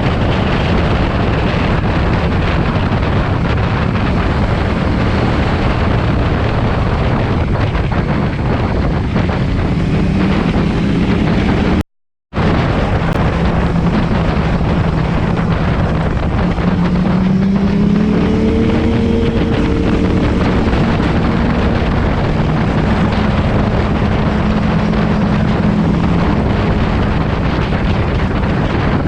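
KTM 790 Duke's parallel-twin engine through an SC-Project aftermarket exhaust, running under load on the move, with wind noise on the microphone. The engine note climbs as the bike accelerates about two-thirds of the way through, and the sound cuts out completely for half a second about twelve seconds in.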